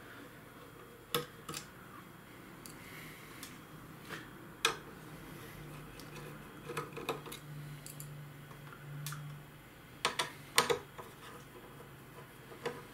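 Small screwdriver working the screws of a PowerColor RX 6800 graphics card's metal backplate: scattered sharp clicks and taps of the bit on the screws and metal, loudest twice in quick succession a little after ten seconds in.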